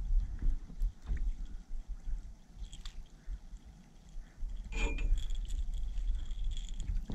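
Fishing reel and rod handling noise as a small catfish is reeled to the side of an aluminium jon boat. Near the end the fish splashes at the surface as it is lifted by the line.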